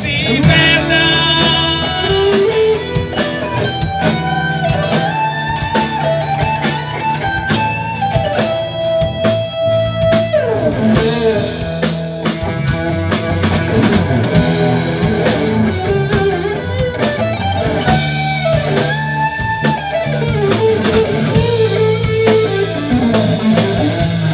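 Live rock band playing an instrumental passage: electric guitar carrying the lead melody with held notes and slides, over a drum kit.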